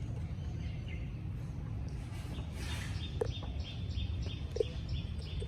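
A bird calling in a quick, regular series of short high chirps, about three a second, starting a little past halfway, over a steady low background rumble.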